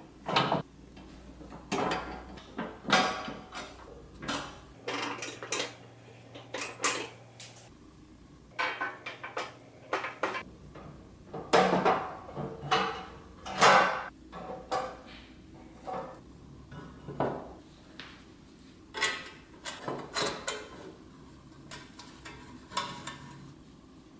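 Painted pressed-steel toy dump truck parts clinking and clanking as they are handled and fitted together: irregular light metal knocks and clicks, some with a brief ring.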